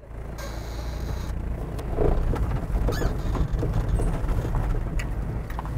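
LDV Pilot van driving slowly across gravel, its engine running with a steady low rumble and a few sharp clicks of stones under the tyres.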